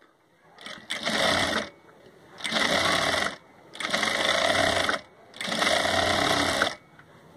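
Industrial single-needle lockstitch sewing machine stitching a folded fabric strip. It runs in four short bursts of about a second each, with brief stops between them.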